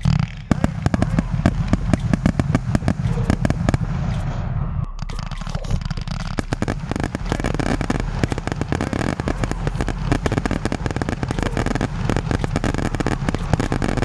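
Consumer firework battery firing, its shots bursting into dense crackling: a fast, unbroken run of sharp pops over a low rumble.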